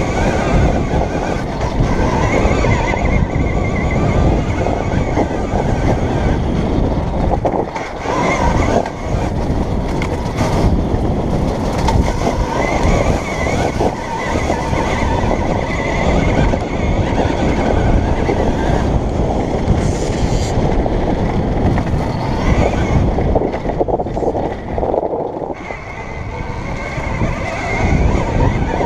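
A KTM Freeride E electric dirt bike ridden over a rough dirt trail, heard from an on-board camera: loud wind and ground rumble on the microphone, with a faint high motor whine that comes and goes. It eases off briefly about three-quarters of the way through.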